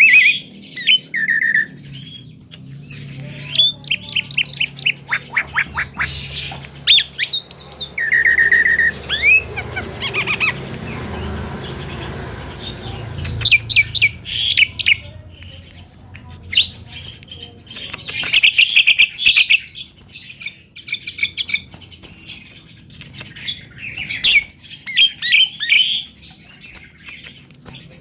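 Javan myna (jalak kebo) calling in irregular bouts of harsh squawks and chatter made of rapid clicking runs, with a couple of short clear whistles.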